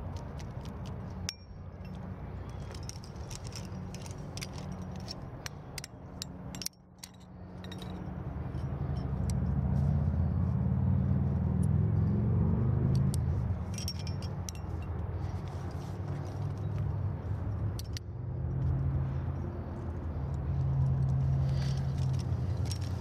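Trad climbing gear clinking and jangling: aluminium carabiners and quickdraws knocking together on the climber's harness as a quickdraw is clipped and he climbs on, many small sharp clinks, over a steady low rumble that swells twice.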